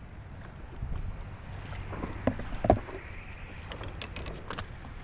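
A landing net dipped into the water beside a plastic kayak to scoop up a tautog: water sloshing and splashing, two knocks about two and a half seconds in, then a spatter of crackling splashes as the fish is netted, over a low rumble of wind on the microphone.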